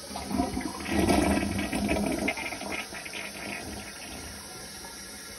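Toilet flushing into a clogged bowl, water rushing and swirling around a plunger seated over the drain; the rush is loudest about a second in and dies away after about three seconds. The toilet is still clogged and the bowl does not clear.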